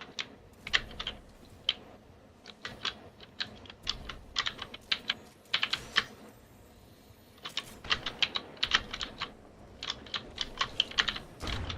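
Typing on a mechanical keyboard with Gateron Blue switches: irregular runs of sharp clicky keystrokes with short pauses between them. A low thump comes near the end.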